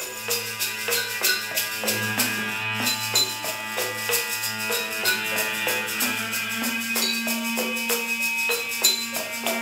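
A homemade bowed string instrument built on a glass bottle, playing held, sliding notes over a low drone, with a quick, even rattling beat running along with them.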